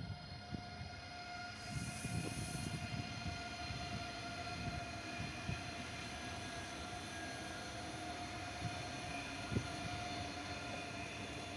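ICE high-speed electric train passing at speed: a steady rush of wheels on rail with a steady whine over it, and a single knock about nine and a half seconds in.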